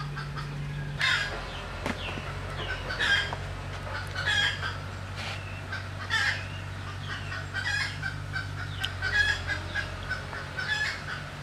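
Domestic chickens clucking and calling over and over, with a rooster crowing among them, over a steady low hum.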